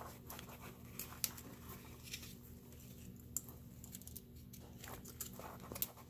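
Faint small clicks and scrapes of a metal pick working against a plastic wiring connector, prying the blue pin-retaining clip off a GM PCM harness plug. A low steady hum runs underneath.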